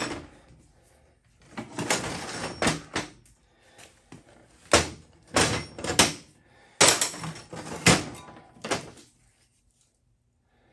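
Mini bike frame, rear shock and swing arm being handled and knocked against a steel diamond-plate workbench: a scraping, rattling clatter, then about five sharp metal clunks roughly a second apart.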